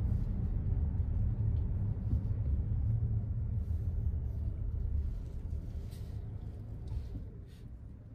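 Car driving on city roads: a steady low rumble of engine and tyre noise that grows quieter from about five seconds in.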